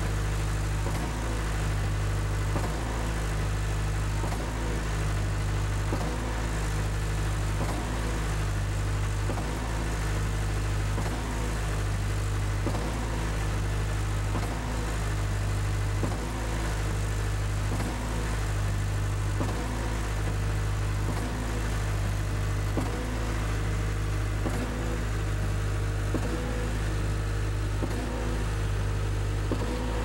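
REED A30HP Rockmaster concrete line pump running steadily under load while pumping pea-gravel concrete, its engine humming low with a regular piston stroke change about every second and a half to two seconds.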